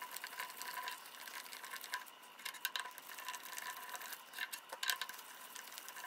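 Cover screws of a Suntec B2VA-8216 oil burner fuel pump being backed out with a hand driver: faint, irregular small clicks and scrapes of metal on metal.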